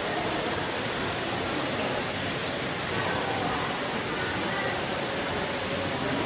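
A steady rushing noise, even and unbroken, with faint murmuring voices of other people in the background about halfway through.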